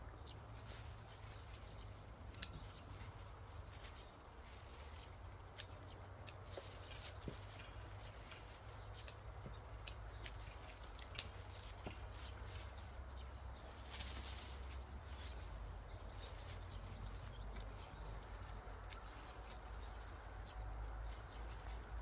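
Quiet hand-harvesting of leafy greens: soft rustling of the plants and scattered sharp clicks of the cutting tool, two of them louder. A bird gives a short call twice, and there is a low steady rumble underneath.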